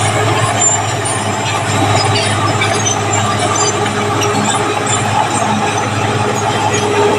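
Caterpillar D6R bulldozer's diesel engine running steadily, with short high squeals from the steel tracks.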